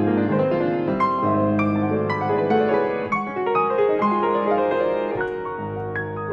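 Solo grand piano playing classical music: quick, rippling notes in the middle and upper register over a held bass, growing gradually softer near the end.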